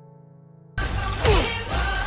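A quiet held music drone, then less than a second in a loud film-trailer soundtrack cuts in suddenly: dense rushing noise over a low rumble, with falling swoops.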